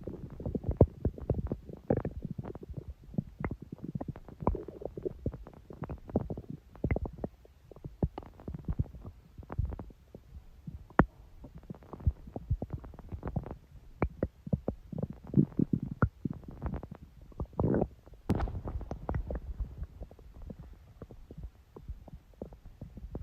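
Human stomach growling and gurgling: low rumbles broken by many irregular short pops and bubbling clicks.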